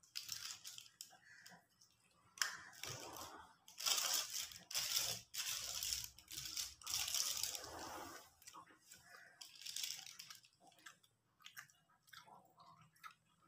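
Hands tearing apart a piece of crisp fried chicken on its paper food wrapping, giving irregular crackling and tearing noises. They come in bursts, loudest a few seconds in, then thin out into scattered small crackles.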